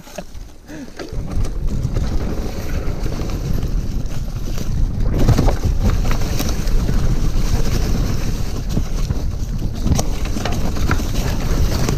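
Wind buffeting the microphone of a camera on a moving mountain bike, a steady low rumble that starts about a second in, with a few sharp knocks and rattles from the bike going over rough ground.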